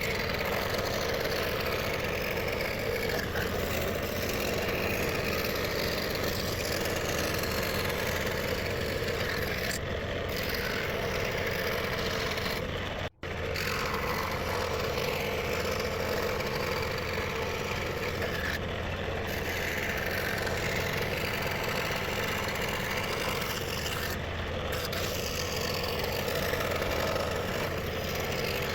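Scroll saw running steadily with a spiral blade, cutting thin plywood. The sound cuts out for a split second about 13 seconds in.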